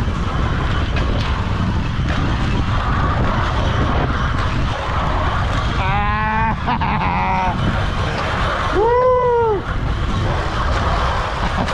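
Steady, loud rumbling ride noise with two human shouts over it: a shaky, warbling yell about six seconds in and a rising-then-falling whoop about nine seconds in.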